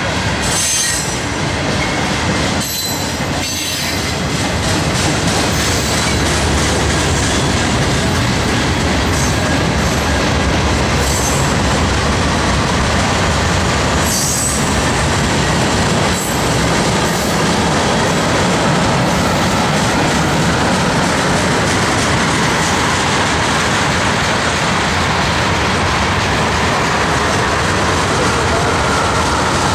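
Freight train cars rolling past close by: a steady, loud rumble and rattle of wheels and cars on the rails, with a faint wheel squeal coming in during the later part.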